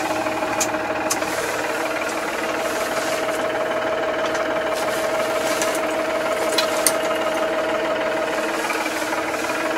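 Tractor engine running steadily under load with a rear-mounted mower working, heard from inside the cab: an even mechanical rattle with a steady whine that drops away near the end, and a few light clicks.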